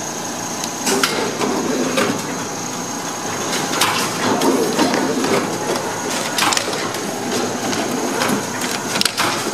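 Hobart AWS-1LR automatic meat wrapping machine running a wrapping cycle on a foam tray: a steady mechanical clatter with a thin high whine, broken by sharp clacks several times as the tray is taken in, wrapped in film and pushed out.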